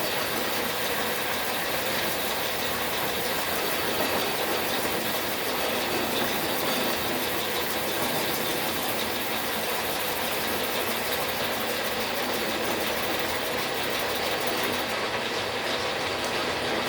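Logan metal lathe running steadily under power during thread-cutting passes, its motor, belts and gear train making a dense, even mechanical clatter.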